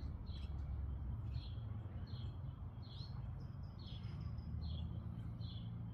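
A bird calling with short, high chirps repeated about every half second, over a steady low rumble of background noise.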